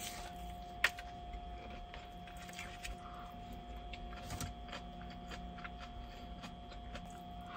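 Scattered light clicks and taps over a steady faint hum, with one sharper click about a second in.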